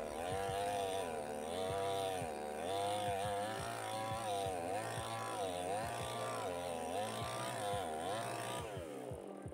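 Two-stroke petrol chainsaw cutting through a thick log under load. Its engine note dips and recovers about once a second as the chain bites into the wood, then falls away near the end as the cut finishes.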